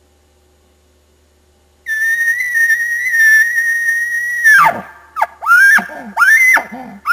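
Bull elk bugle imitated on a diaphragm call blown through a grunt tube: a high whistle held for about two and a half seconds, then a steep drop into a string of short guttural chuckles with growls under them.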